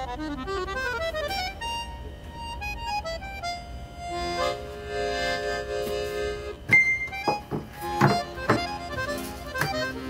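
Background music: a light, jaunty accordion tune with a moving melody, with several sharp knocks in its second half.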